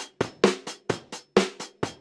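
Background music with a fast, steady drum beat: sharp hits several times a second, with a heavier beat about once a second.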